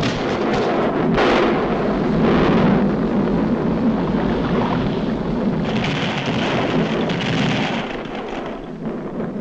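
Cartoon sound effect of a volcanic eruption: a continuous rumbling roar with crackling and a crash about a second in. A hissing rush joins about six seconds in, and the roar eases near the end.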